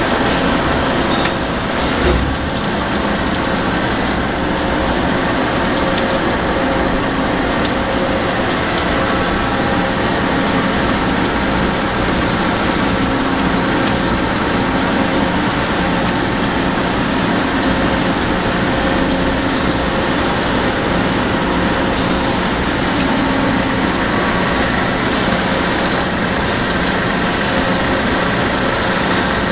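Toshiba BTD13 CNC horizontal boring mill running: a steady mechanical hum and hiss with faint steady tones through it, and a single light knock about two seconds in.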